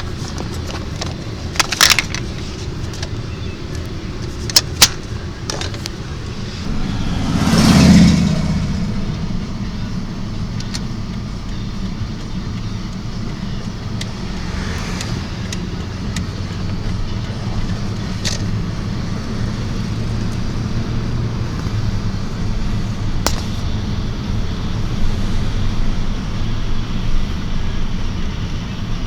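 Motor vehicle on the road: a steady low engine and road rumble, with a louder whoosh that swells and fades about eight seconds in. A few sharp clicks sound in the first five seconds.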